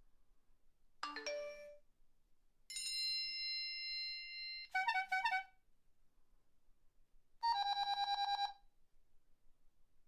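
A series of four different electronic phone alert tones. First comes a quick rising three-note chime, then a held bell-like tone lasting about two seconds, then a few rapid beeps. A fast trilling ring about a second long plays near the end.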